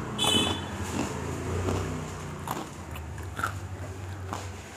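A person biting into a crisp waffle spread with chocolate and chewing it, with short crunching clicks and mouth noises, over a low steady hum.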